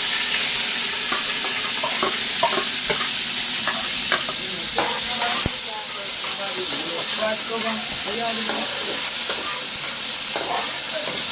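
Chopped sweet peppers and tomato sizzling in hot oil in a large aluminium pot, with a steady hiss and the spatula scraping and clicking against the pot as they are stirred.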